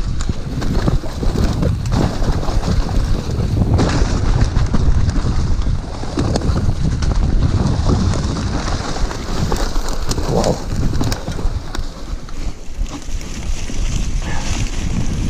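Wind buffeting the microphone of a camera on a mountain bike riding fast down a muddy, leaf-covered trail, with tyre noise and frequent rattling knocks from the bike over the rough ground.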